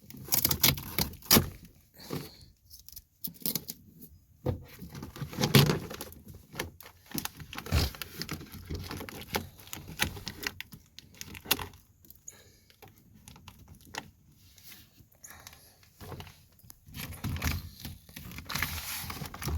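Plastic moisture barrier sheet being peeled back from the inside of a minivan sliding door, with tape tearing loose and the plastic crinkling in irregular crackles and clicks.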